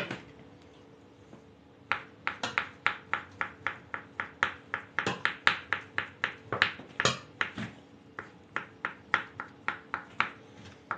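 Kitchen knife dicing boiled potato on a wooden cutting board: quiet at first, then a steady run of sharp knocks of the blade on the board, about three a second, with a brief break partway through.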